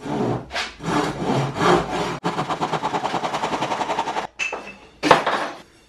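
Cordless drill run in short bursts, then a fast, even rattle for about two seconds in the middle that stops abruptly, and one more short burst near the end.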